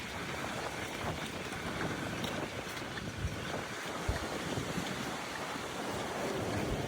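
Strong wind buffeting the microphone with low gusty thumps, over the steady wash of surf on a beach.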